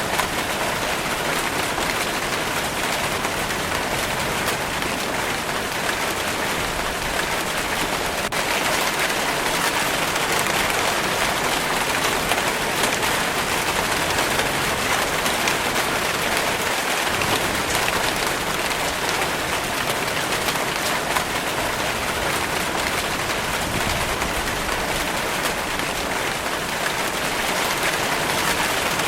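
Steady rainfall pattering on a surface: an even, unbroken hiss of many small drops.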